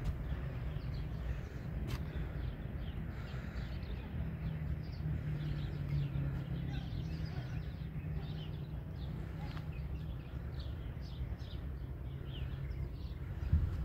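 Small birds chirping again and again over a steady low background rumble, with a single sharp click about two seconds in.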